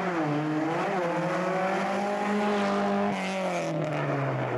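Rally car engine at high revs as the car passes close by, its note held steady and slowly rising, then falling in pitch near the end.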